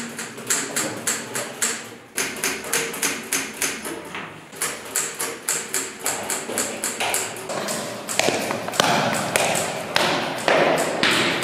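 Wall clock ticking steadily, about three ticks a second, giving way after about six seconds to busier, irregular clicking and clatter.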